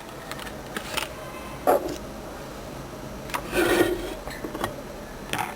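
A few separate knocks and clicks, with a short scraping rub in the middle: parts of a microwave oven being handled and shifted during disassembly.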